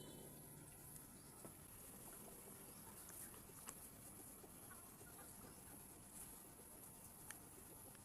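Near silence: faint room tone with a few soft, short clicks.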